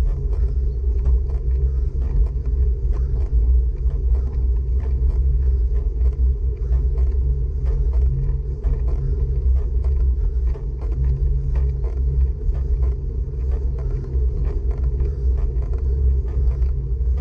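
Steady low rumble of wind and road vibration on the microphone of a camera riding along on a road bike during a climb, with many small clicks and ticks scattered through it.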